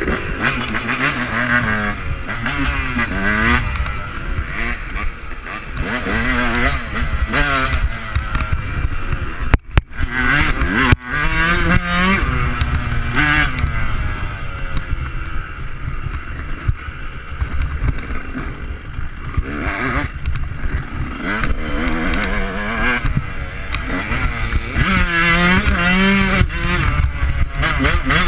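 Yamaha YZ125 125cc two-stroke motocross engine revving hard and falling off again and again as the rider works the throttle and gears, with wind noise on the microphone. The engine briefly cuts away about ten seconds in.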